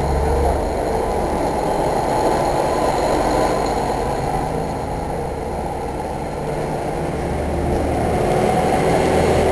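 Diesel railcar passing close by: a loud, steady rumble of engine and wheels on the rails, easing a little midway and building again near the end.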